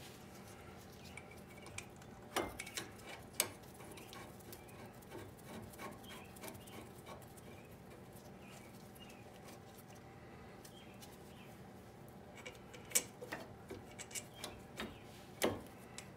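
Scattered light metallic clicks and taps of brake pads and caliper hardware being handled and seated on a rear disc brake caliper bracket, with a cluster a couple of seconds in and another near the end, over a faint steady hum.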